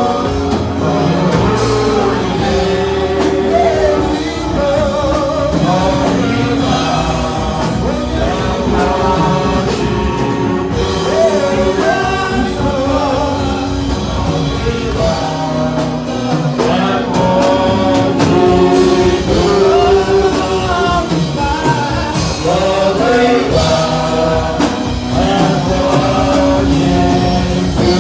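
A song with a voice singing over instrumental backing, playing steadily.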